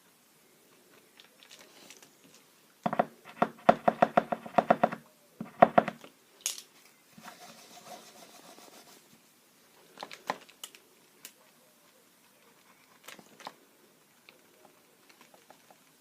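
Paint marker being shaken, its mixing ball rattling in quick clicks: a run of about two seconds, then a shorter burst, followed by a few single clicks and taps.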